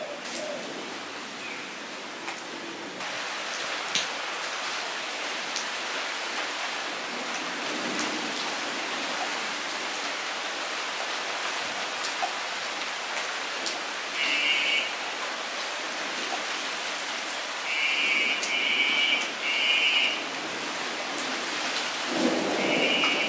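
Steady rain falling into a puddle on bare ground, with the patter and tick of single drops striking the water. A few short, higher rattling bursts break in during the second half.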